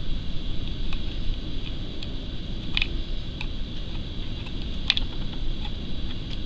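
A few soft, scattered clicks of a metal loom-knitting hook against the pegs of a wooden sock loom as loops are lifted over, the clearest about three and five seconds in, over a steady low background rumble.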